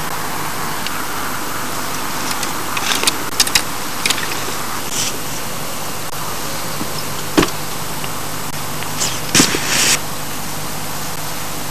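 Steady outdoor background hiss with a handful of short clicks and knocks from fishing tackle being handled: a few light ones about three to four seconds in, a sharp knock about seven seconds in, and a cluster near the end.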